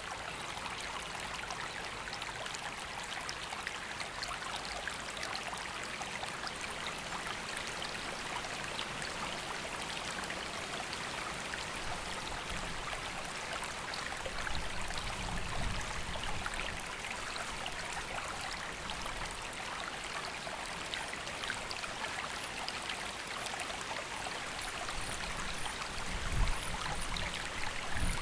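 River running: a steady rush of flowing water, with brief low rumbles about halfway through and again near the end.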